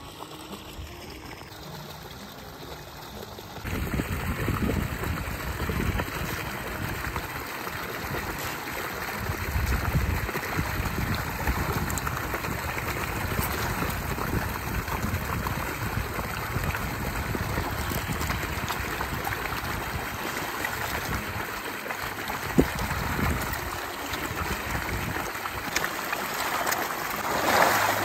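A mass of koi splashing and churning at the pond surface as they rush for feed. The splashing starts suddenly about four seconds in and then carries on steadily, with a louder surge near the end.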